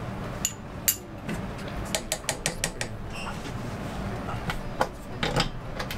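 A spoon clicking and scraping against a frying pan as a lump of miso is worked into the sauce ingredients: a quick, irregular run of light clicks.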